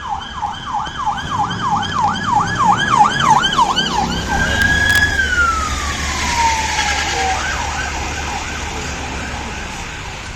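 London police car siren on its fast yelp setting, about three rises and falls a second. About four seconds in it switches to one long high tone that slides slowly down, then a fainter fast yelp returns near the end. A low vehicle rumble runs underneath.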